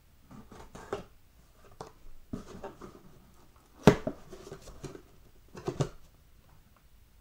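Cardboard shipping box being handled and pulled open: rustling and scraping of cardboard in several short bursts, with one sharp knock about four seconds in, the loudest sound.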